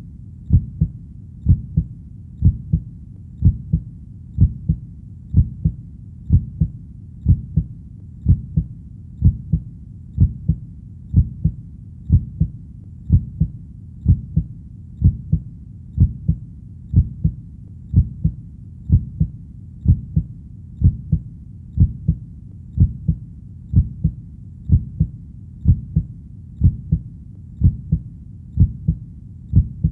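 Human heartbeat: steady, slow low thumps in lub-dub pairs, about one beat a second, over a faint low hum.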